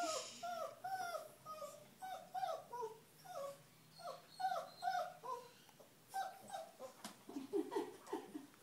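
Small shaggy terrier-type dog whining in short, repeated high whimpers, about two a second, each rising and falling in pitch; near the end the whines turn lower and shorter. It is a pleading whine from a dog that wants the carrier another dog is sleeping in.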